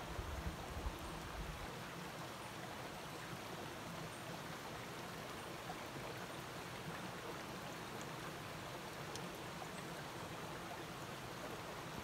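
Steady rushing of a shallow stream flowing over rocks, with a few low bumps from the camera being handled in the first second.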